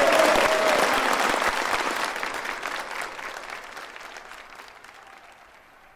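Audience applauding at the end of a song, the clapping fading away gradually over several seconds, with a last held note dying out about a second in.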